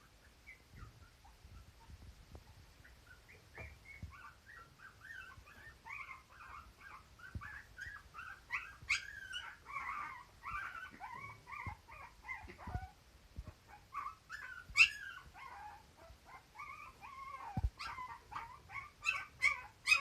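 Mame shiba dog making a string of short, high-pitched whining calls. They start faint and grow more frequent and louder, broken by a few sharp yips near the middle and toward the end.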